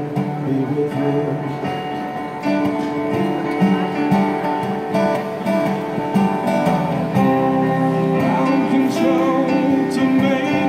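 Live acoustic guitar strumming together with an electronic keyboard playing chords, a steady instrumental stretch of a song.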